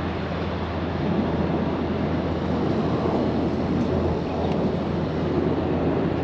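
Steady low rumble and rushing road noise of a moving vehicle, with a constant low engine hum underneath.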